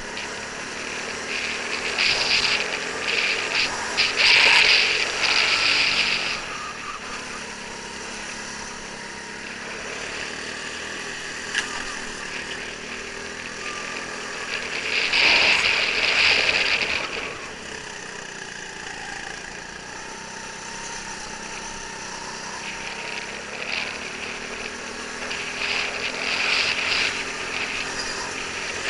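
Go-kart engine running at racing speed, heard from the kart itself, its pitch rising and falling through the corners. A loud high rushing hiss swells over it three times: a few seconds in, about halfway, and near the end.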